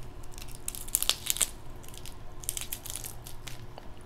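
Crab legs being cracked and eaten close to the microphone: two runs of crisp, crackling shell snaps and crunches, the first about half a second in and the second from about two and a half seconds.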